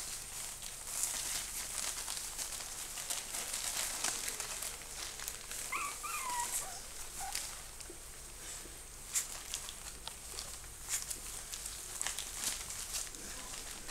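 A puppy gives one short whine that rises and falls in pitch about six seconds in, over faint scratchy rustling of puppies scrambling on a crinkly pad.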